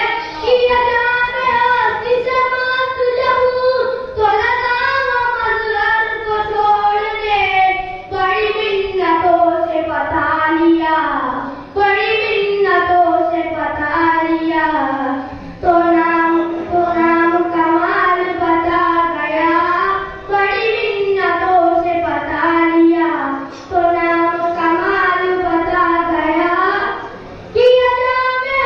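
A young boy singing a naat, an Islamic devotional poem in praise of the Prophet, solo and without accompaniment. The melody moves in long, ornamented phrases with a short breath between each.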